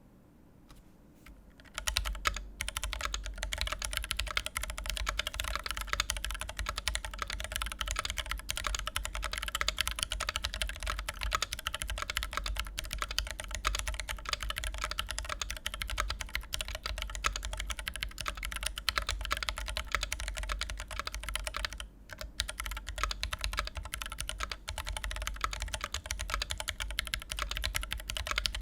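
Continuous fast typing on a Constellation mechanical keyboard with a thick brass plate, Dragonfruit switches fitted with 3204 springs and Durock films, and Zeal stabilisers: a dense stream of key clacks. The typing starts about two seconds in and dips briefly about three-quarters of the way through.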